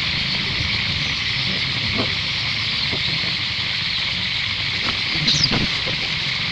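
Steady high-pitched hiss of outdoor forest ambience, with faint ticks and a short high chirp about five seconds in.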